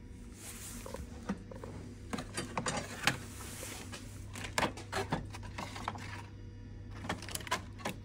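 Irregular clicks, taps and rustling from knives and cardboard boxes being handled, over a steady low hum.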